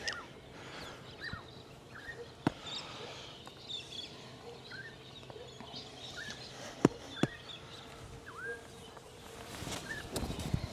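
Birds chirping with short, scattered calls, over which a few sharp clicks sound: one about two and a half seconds in and two close together about seven seconds in, the strike of a wedge on golf balls.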